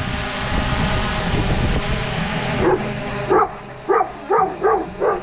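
A dog barking at a hovering drone: about six sharp barks in quick succession in the second half, over the steady hum of the drone's propellers.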